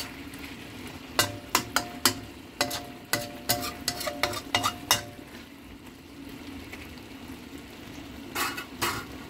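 A metal spatula scrapes and knocks against a steel wok, a dozen or so quick strokes between one and five seconds in, the wok ringing briefly with each. Another short burst of scraping comes near the end. Under it runs a steady low sizzle of pork and preserved vegetables frying in the wok.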